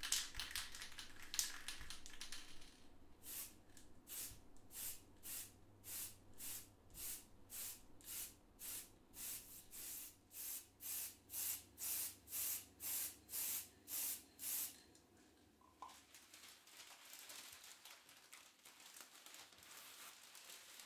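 Aerosol spray-paint can sprayed through a stencil in short, even bursts, about two a second. After it stops, newspaper masking crinkles as it is peeled away.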